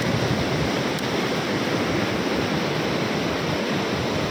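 Water cascading over a concrete ledge and churning into white foam below: a steady, unbroken rush.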